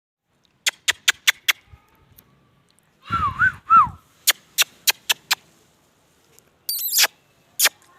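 A pet parrot's two short warbling calls about three seconds in, its pitch swinging up and down, and a brief harsh squawk near seven seconds. Sharp clicks come in quick runs of about five, early on and again around four to five seconds.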